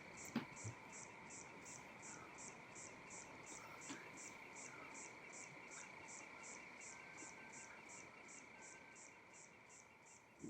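Faint background of chirping insects: an even, high-pitched chirp about three times a second over a steady faint high tone.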